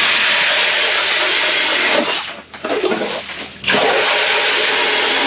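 Power ice auger drilling through ice, a loud steady grinding churn with ice chips spraying. It eases off about two seconds in and starts drilling again a little before four seconds.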